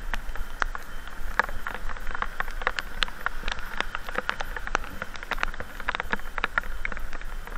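Raindrops striking close to the microphone as many sharp, irregular taps, over a steady hiss of rain and wet road and a low steady rumble underneath.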